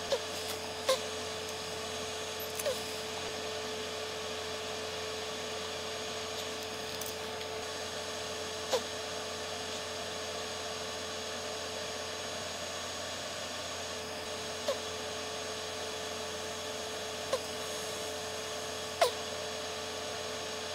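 Steady hum and hiss of bench equipment with a faint held tone, broken by a few light clicks as fine tweezers lay a jumper wire on a phone logic board.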